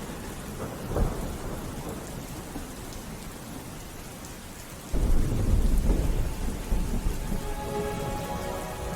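Steady rain with thunder: a low rumble of thunder comes in suddenly about five seconds in and rolls on.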